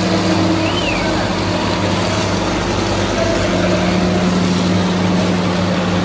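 Transit concrete mixer truck's diesel engine running steadily at constant speed while it discharges concrete down its chute.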